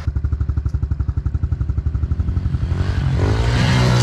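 Honda CRF110F pit bike's small single-cylinder four-stroke engine chugging at low revs with even, rapid pulses, then revved up and louder about three seconds in as the bike is ridden on through snow.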